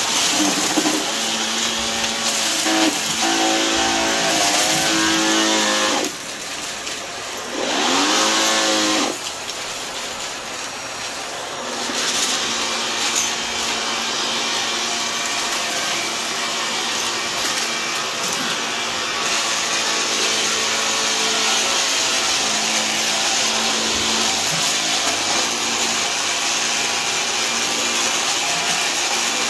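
Shark Lift-Away upright vacuum running on carpet while it sucks up a pile of crunchy debris. Its motor note dips and climbs a few times in the first twelve seconds or so, then it runs steadily.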